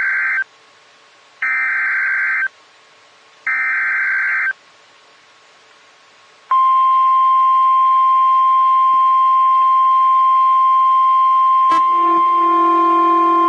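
Emergency Alert System signal: three short bursts of buzzy, warbling data tone, about a second each and a second apart (the encoded SAME header), then a loud, steady, single-pitch attention tone. A click about twelve seconds in adds lower steady tones beneath it, making it harsher.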